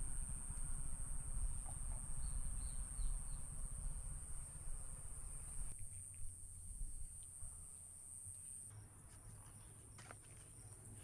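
Insects trilling in one steady high-pitched tone, over a low rumble that fades about six seconds in, with a few faint bird chirps.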